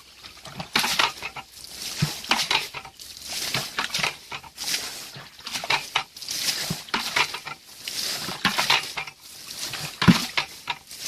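Water being bailed out of a shallow muddy pool with a plastic bucket: repeated scoops and splashes as the water is flung out, about once a second.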